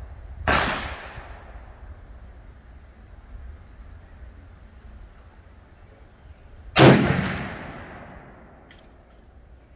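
Two rifle shots about six seconds apart, each followed by a rolling echo that dies away over about a second. The second shot, nearly seven seconds in, is much louder.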